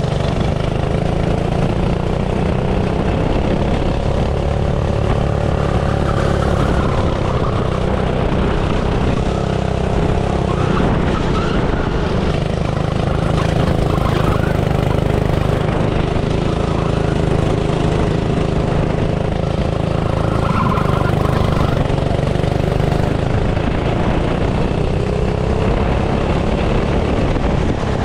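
Small kart engine running continuously, its pitch rising and falling as the throttle is worked.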